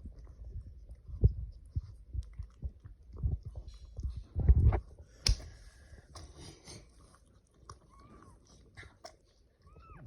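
Mother cat licking and mouthing her newborn kitten: irregular wet lapping and chewing sounds, loudest in the first half. Near the end come two faint short mews.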